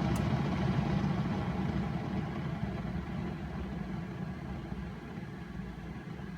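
Keurig K-Classic single-serve coffee maker brewing, its pump giving a steady low hum that slowly gets quieter, with a faint click just after the start.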